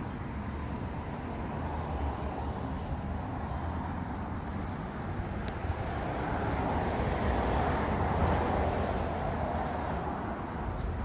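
Street traffic noise: a steady hum of passing cars, swelling as a vehicle goes by about six to nine seconds in.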